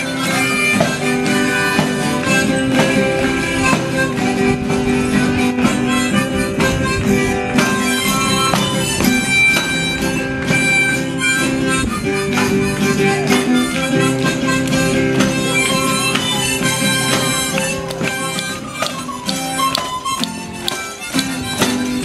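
Live music: an acoustic guitar strummed steadily, with a melody of long held notes over it.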